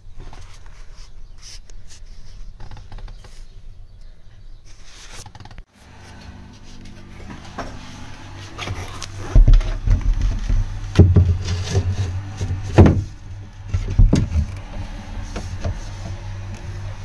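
Scattered knocks and bumps of a bulkhead panel being handled and fitted in a boat's engine bay, loudest and most frequent in the second half, over a steady low hum.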